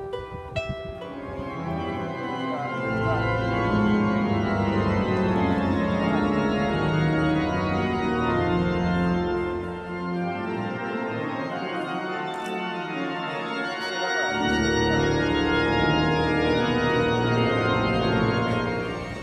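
Church pipe organ playing slow, sustained chords, its lowest bass notes dropping out for a few seconds midway. A few plucked kokle notes sound briefly at the very start.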